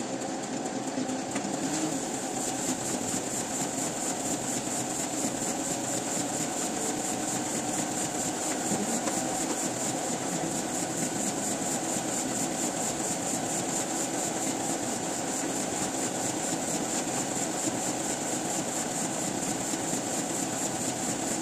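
Printing press machinery running steadily, with a fast, even mechanical clatter.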